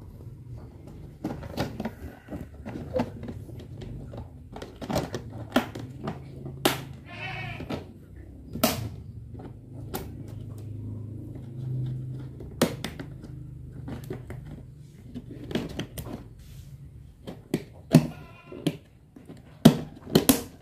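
Hard plastic fruit crates clacking and knocking as one crate is fitted over another as a lid and fastened to it, with irregular sharp clicks that are loudest near the end.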